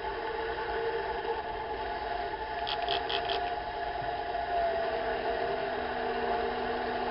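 Metal lathe running on a turning pass in 12L14 leaded steel bar stock, its motor and gears giving a steady whine, with four quick high chirps close together about three seconds in.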